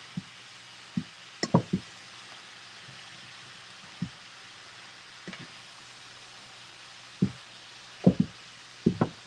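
Wooden spoons knocking against a frying pan as shredded red cabbage is tossed and stirred: scattered knocks, with a quick cluster about a second and a half in and another near the end.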